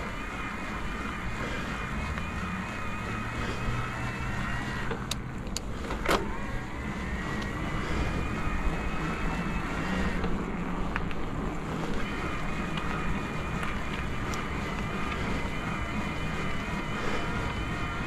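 Electric bike motor whining under load on an uphill climb: a few steady high tones that dip twice and come back, over wind rumble on the microphone. A couple of sharp clicks about five to six seconds in.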